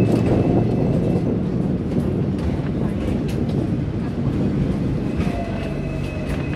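Hong Kong double-decker electric tram running along street track, heard from the upper deck: a steady rumble with scattered clicks from the wheels on the rails, and a thin high whine at the start and again near the end.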